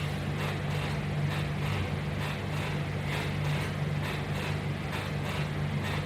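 A steady mechanical hum with a fast, even pulsing of about three beats a second, like a fan or motor running.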